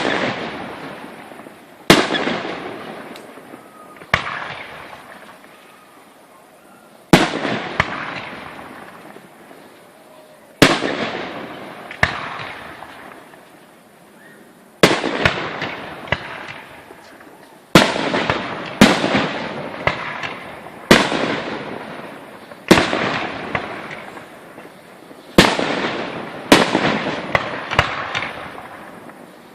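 Aerial fireworks shells bursting one after another, each a sharp bang followed by a fading crackle. The bursts come every two to three seconds at first, then about once a second in the second half.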